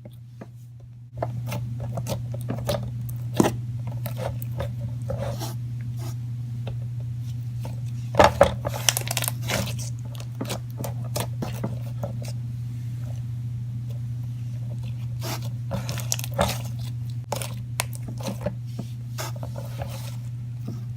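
Slime with microfoam beads and foam chunks being squeezed and played with by hand for ASMR, giving a run of small irregular crackles, pops and squelches, busiest around eight to nine seconds in. A steady low hum runs underneath from about a second in.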